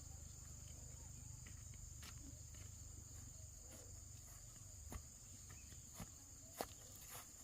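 An insect trilling steadily at a high pitch, faint, with a low background rumble and a few soft clicks scattered through it.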